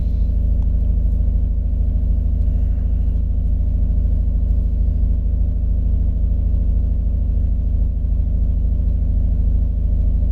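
Nissan Murano 3.5-litre V6 engine idling steadily.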